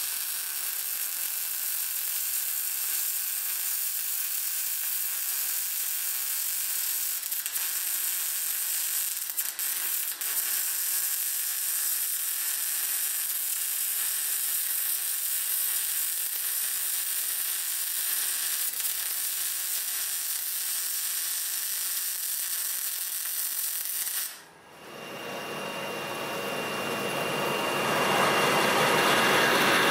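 MIG welding arc crackling and hissing steadily as a weld is run along a steel bracket, stopping abruptly about 24 seconds in. A metal lathe then runs with a twist drill boring into the spinning workpiece, its noise growing louder toward the end.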